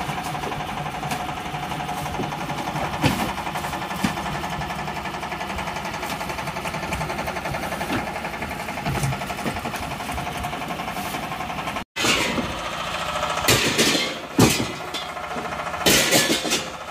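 Tianli 1130 diesel boat engine running steadily. After a sudden cut about two-thirds of the way through, several sharp knocks and clatter sound over the engine.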